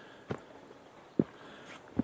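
Footsteps of a person walking on a hiking trail, a step about every second, each a short thud, over the faint steady rush of a mountain stream.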